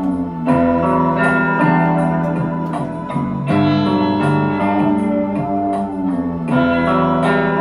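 Instrumental electronic music track with a steady beat: sustained keyboard-like chords and melody over a bass line.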